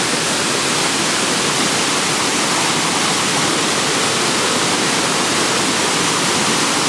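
A 95-foot waterfall's steady, loud rush of falling water, with no change in level.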